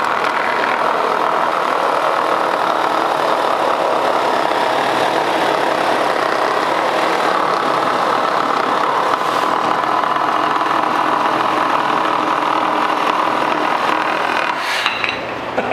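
Two cordless 12-volt reciprocating saws, a DeWalt DCS312 and a Milwaukee M12 Fuel Hackzall, running flat out at the same time, their blades stroking through a wooden 2x4 with steady, dense buzzing. Near the end one saw breaks through and stops, and the sound drops.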